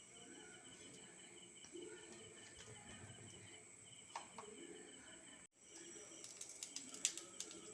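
Quiet background with a faint, steady insect chirping, a rapid even pulsing, and a few soft clicks near the end.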